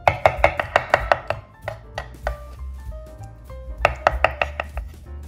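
Kitchen knife chopping pitted umeboshi flesh into a paste on a wooden cutting board: two bursts of quick knocks, about seven a second, one at the start and one a little under four seconds in. Light background music plays underneath.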